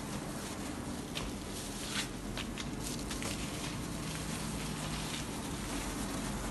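Soft crinkling and rustling of plastic food-service gloves and flatbread as a çiğ köfte wrap is rolled, a few faint clicks over a steady background hum.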